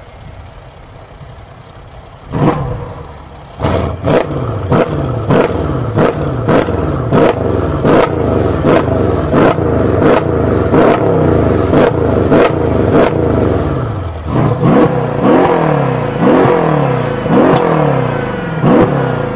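V8 engine idling, blipped once, then revved over and over in quick throttle blips, about two a second, each rising and dropping back sharply.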